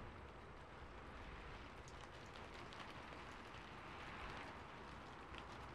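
Rain falling on a rooftop: a faint, steady patter with scattered single drop ticks.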